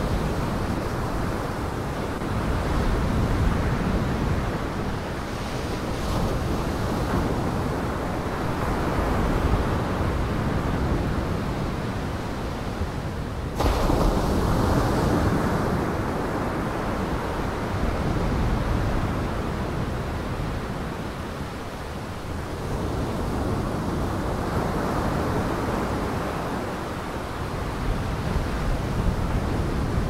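Surf with wind: waves washing in, rising and falling every several seconds. Partway through, the sound jumps suddenly louder at what sounds like a cut in the track.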